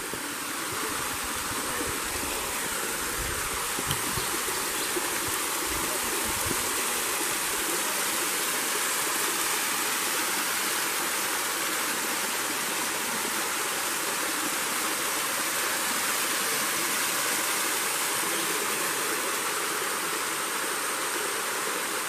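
Waterfall pouring down a rock face: a steady, unbroken rush of falling and splashing water.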